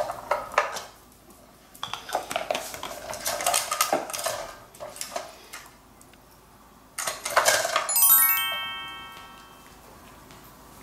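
Plastic clicking and clattering of a dog treat puzzle toy as its lids are handled and nosed open, then about eight seconds in a bright bell-like chime sound effect rings out and fades over about two seconds, marking the dog's first success at the puzzle.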